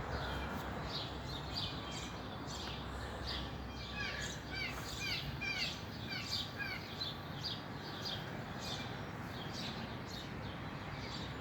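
Birds chirping: many quick, short chirps that slide down in pitch, coming thickest in the middle stretch, over a steady low background hiss.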